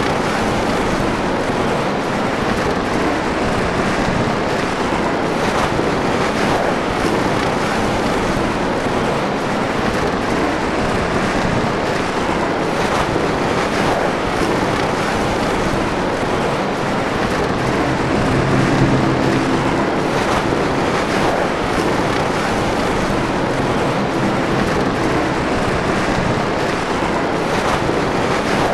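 Snowstorm wind blowing steadily, a dense unbroken rush of noise. A low hum swells briefly about two-thirds of the way through.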